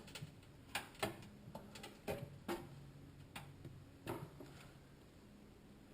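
Faint, irregular plastic clicks and taps of a cable connector being handled and pushed into place inside a desktop PC case, about six in all, the last a little after four seconds in.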